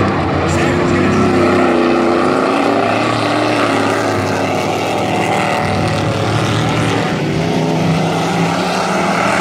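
A pack of dirt-track race trucks running at racing speed, several engines revving at once, their pitches rising and falling against each other.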